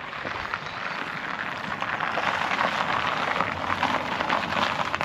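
Tyres of a Ford Fiesta crunching and crackling over icy, gritted gravel as the car rolls up slowly, growing louder over the first two seconds as it comes close.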